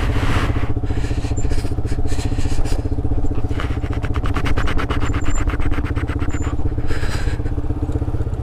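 Yamaha R15 V3's single-cylinder engine, fitted with an aftermarket Akrapovic exhaust, running steadily at low revs as the bike rolls along. In the middle there is a stretch of rapid, even pulses.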